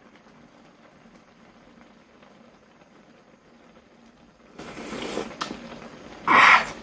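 A person slurping a hot spoonful of doenjang soup with rice and drawing in air over it. It starts about four and a half seconds in, and the loudest slurp comes near the end.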